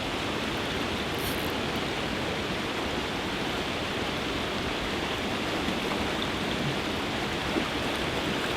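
Steady, even rush of water noise with no distinct events.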